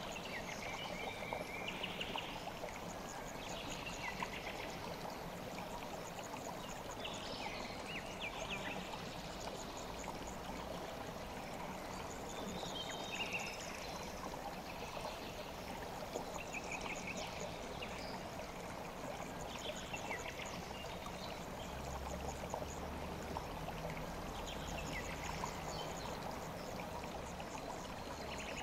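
Kükü river stream flowing steadily. A short high trill recurs every two to three seconds above the water.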